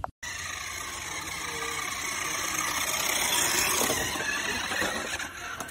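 Radio-controlled toy truck's small electric motor and gears whirring steadily as it drives, growing louder toward the middle and easing off near the end.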